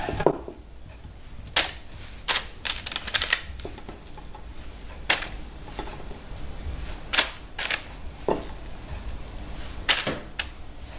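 Wet, sticky clicks and smacks of raw minced meat being rolled into balls between oiled hands and set down on a parchment-lined tray. They come irregularly, about a dozen short sharp sounds, sometimes several close together.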